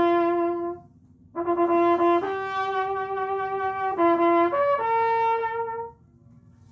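A solo brass horn playing a slow melody of long held notes. A short phrase ends about a second in and a longer one follows, stopping about six seconds in. Faint returning tones can be heard afterwards, the horn's echo off the lake's rock walls.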